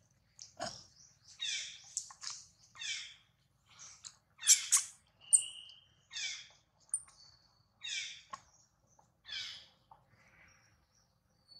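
Baby long-tailed macaque crying: a series of about seven high-pitched, falling cries, roughly one every second and a half, the loudest about halfway through.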